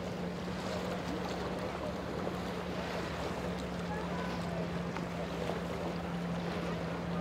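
Boat engine running at a steady drone, with water and wind noise.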